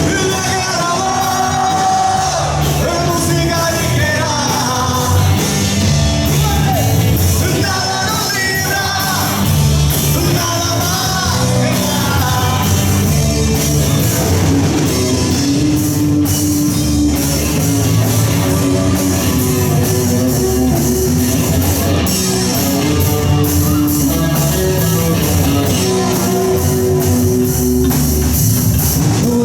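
Live rock band playing a song: a singer's voice over electric guitar, bass guitar and drums.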